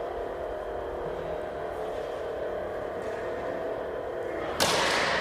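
Combat lightsaber blades clashing once near the end, a sudden loud strike that rings on briefly, over a steady hum.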